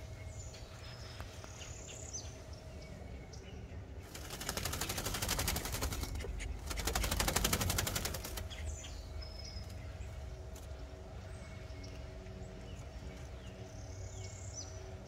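Blue fawn call duck shaking its body and flapping its wings: two bursts of rapid feather flutter, each about two seconds long, starting about four seconds in.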